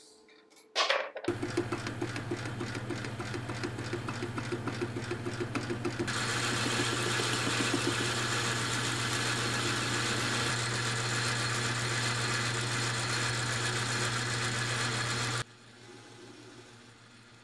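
A metal lathe running, its tool cutting a small round part, with a steady low motor hum under the cutting noise. The cutting gets louder about six seconds in, and the sound cuts off suddenly near the end, leaving a fainter hum.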